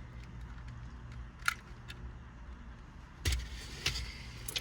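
A steady low hum inside a car, with a sharp click about one and a half seconds in and a few more clicks and a knock near the end, as of parts being handled.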